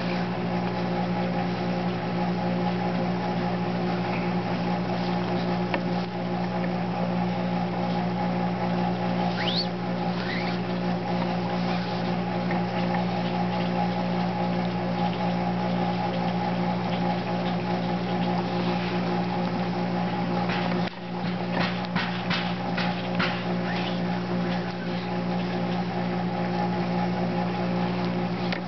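A steady machine drone holding one pitch, with a short dropout about 21 seconds in. Faint rustles and clicks of paracord being pulled and woven around the handle sit on top of it.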